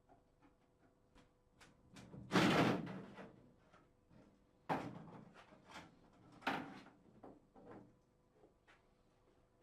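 Acrylic bath panel being prised off and handled: scattered small clicks and rattles, with three louder hollow knocks about two seconds apart.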